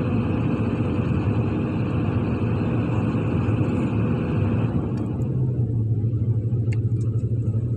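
Heavy diesel engine of a SANY SY365H excavator running steadily under work. About two-thirds of the way through, a higher whine stops and the low engine drone comes forward.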